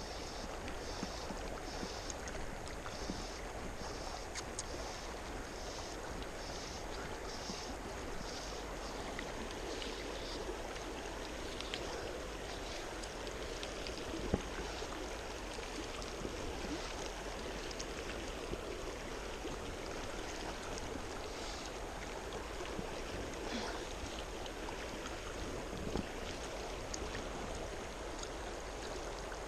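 Steady rush of flowing river water, with a faint high pulsing repeated about twice a second during the first third and a few light clicks.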